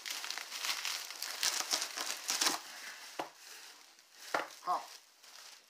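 Bubble wrap and a plastic bag crinkling and rustling as a wrapped item is pulled out of a cardboard box. The crinkling is busiest for the first two and a half seconds, then thins out to a few sharp crackles.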